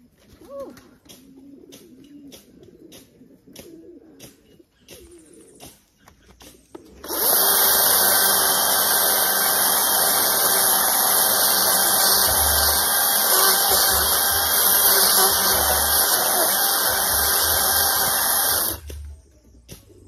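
DeWalt cordless electric chainsaw running at full speed as it cuts into a log: a loud, steady, high-pitched whine that starts about seven seconds in, runs for about twelve seconds with some low thuds in its second half, and cuts off sharply near the end.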